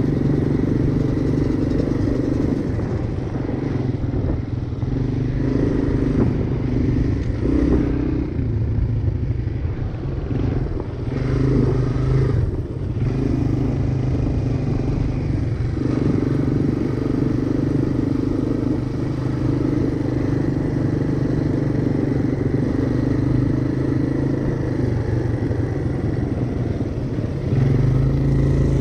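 Honda three-wheeler's single-cylinder engine running under way on a trail, its note rising and falling with the throttle, with some clattering from the machine over rough ground.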